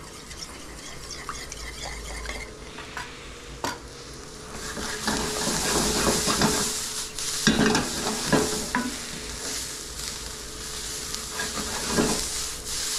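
Chopped onion, carrot and garlic sizzling in a skillet, stirred and scraped with a wooden spoon as they begin to brown. The sizzle starts about four seconds in, after a few light clinks of a spoon in a small metal bowl of glaze.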